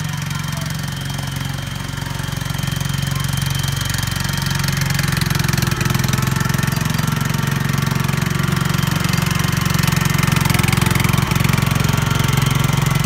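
Riding lawn tractor engine running steadily while pulling a train of barrel cars. It grows louder over the first few seconds as the train comes close.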